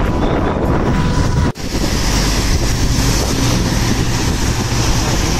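Wind buffeting the microphone of a rider on a moving two-wheeler, over steady road and engine noise. The sound drops out for an instant about a second and a half in.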